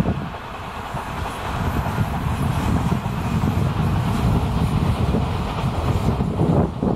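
Odakyu Line electric commuter train running past, a steady rumble of wheels on the track.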